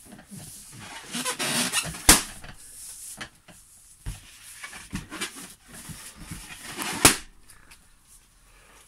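Rubber balloon squeaking and rubbing as it is squashed under someone sitting on it, then bursting with a loud pop about two seconds in. A second sharp crack comes about seven seconds in.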